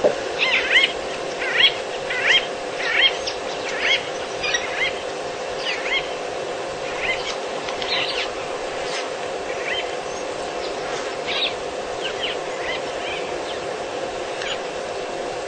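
Black-backed jackal giving short, repeated yelping alarm calls, about one every second at first and then fewer and fainter, the agitated calling of a jackal still shaken after an attack. A steady low hum runs underneath.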